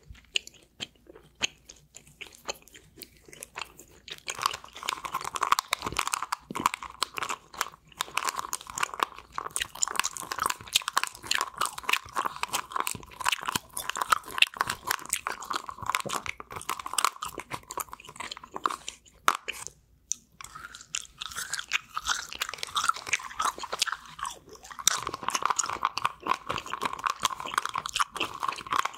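Close-miked gum chewing: a mouth working Ice Breakers Ice Cubes fruit punch gum, with rapid wet smacks, clicks and crunches. It goes quieter for a few seconds near the start and pauses briefly about two-thirds through.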